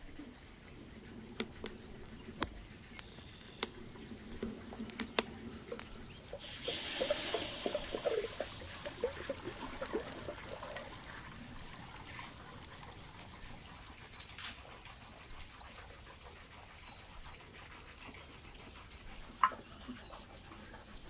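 Water hissing and splashing for several seconds in a steaming cauldron, with a few sharp clicks before it and a single sharp knock near the end.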